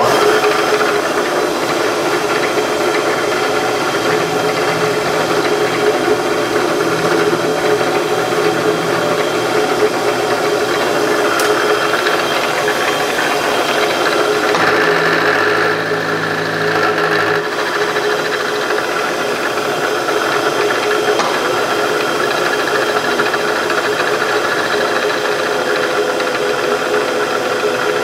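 Vertical milling machine running steadily, its end mill cutting a metal key blank held in a machine vise, taking it down to final thickness.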